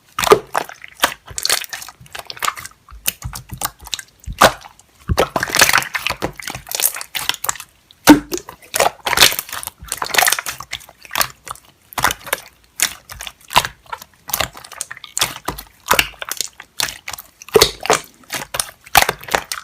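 Slime being squished and pressed by hand, a dense run of irregular crackling pops and clicks.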